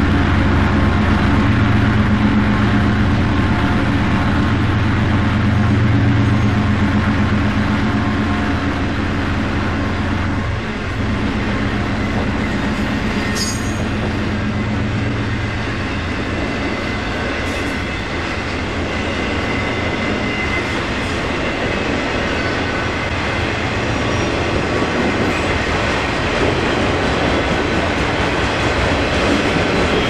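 Freight train of autorack cars rolling past, steel wheels running on the rails. A low steady drone from the GE Evolution-series locomotives working hard up the grade fills the first ten seconds or so, then drops away, leaving mainly the wheel-and-rail noise.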